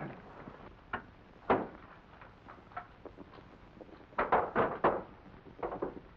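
A few sharp knocks and clatters: a single one about a second in, the loudest half a second later, then a quick run of them between about four and five seconds in.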